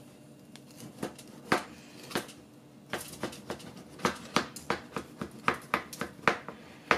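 Metal spatula scraping and clicking against the side of a metal cake pan as it is worked around the edge to loosen a baked cake. A few scattered scrapes at first, then a quick run of them, about two or three a second.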